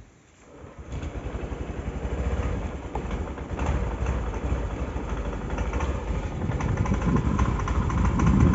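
Honda Activa 6G scooter's single-cylinder four-stroke engine starting about a second in and then running with a slightly uneven level. This is a scooter that suffers from hard starting and delayed pickup.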